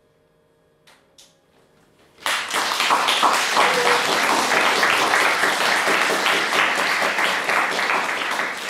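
An audience starts applauding about two seconds in, sudden and loud, and keeps clapping. Before it there is near silence with a faint steady hum and two soft clicks.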